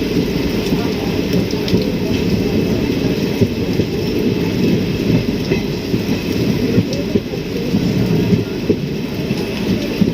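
A train running with a steady low rumble, with heavy rain mixed in.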